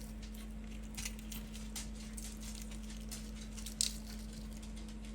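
Scattered light clicks and taps over a steady low hum, with one sharper click about four seconds in.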